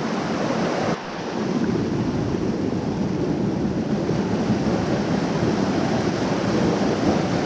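Creek water rushing steadily, with a brief break about a second in.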